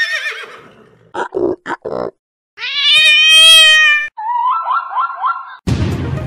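A string of animal call sound effects. A horse whinnies with a falling pitch, a few short grunts follow, then a cat gives one long, loud meow. Next comes a quick run of about four barking calls, typical of a zebra, and bouncy music starts near the end.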